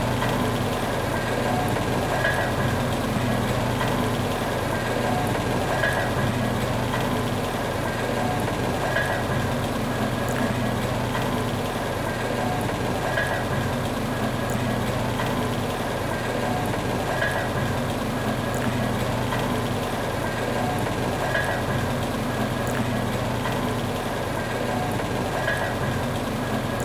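Steady running of old line-shaft-driven machine shop machinery, a continuous mechanical rumble and clatter of overhead belts and machines. A brief higher note recurs every three to four seconds.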